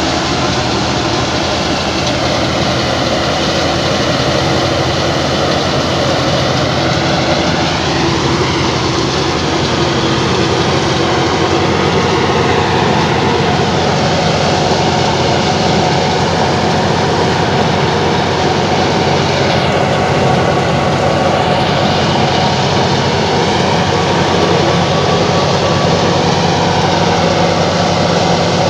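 Old Fiat 480 tractor's diesel engine running steadily under load, driving a wheat thresher, with the thresher's machinery running along with it.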